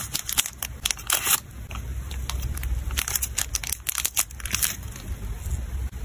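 Thin clear plastic photocard sleeves crinkling and crackling as a stack of photocards is handled, in two clusters of sharp crackles: one in the first second and a half and another from about three seconds in.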